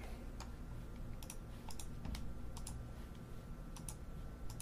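About a dozen light, irregular clicks from a computer mouse and keyboard being worked, over a faint steady low hum.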